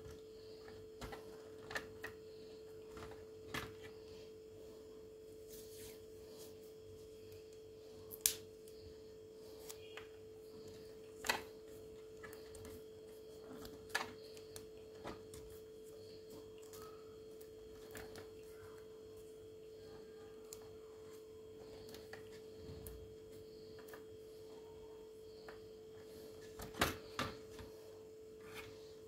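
Scattered sharp clicks and taps of parts being handled during work on a dishwasher control board, a few louder than the rest, over a steady faint hum.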